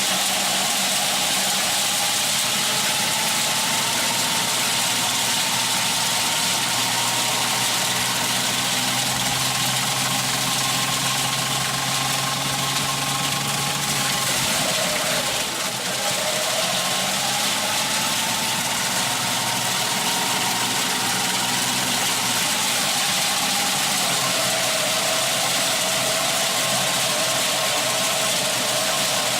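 An engine running steadily, with a constant hiss and a whine that dips in pitch about halfway through before rising again.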